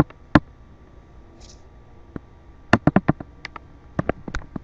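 A series of sharp, irregular clicks and taps: one near the start, a quick cluster a little under three seconds in, then several more spaced out towards the end.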